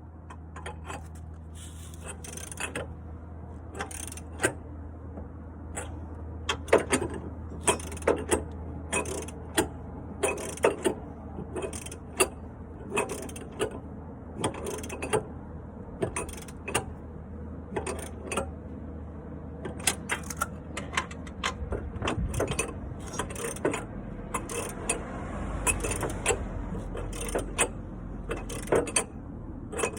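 Ratchet wrench clicking in repeated strokes, roughly one to two clicks a second, tightening the top mount nut of a shock absorber.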